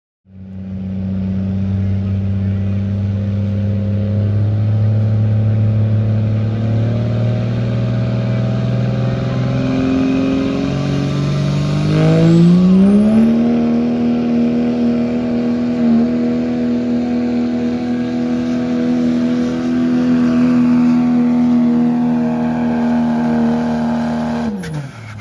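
Diesel pickup truck's engine running hard under full load as it pulls a weight-transfer sled. The engine note holds steady, climbs in pitch about halfway through and stays high, then drops away near the end as the driver lets off.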